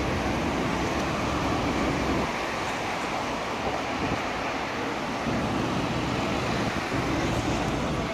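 A Hess trolleybus standing at a stop, giving a steady low electric hum that fades about two seconds in and returns more faintly later, over passing street traffic.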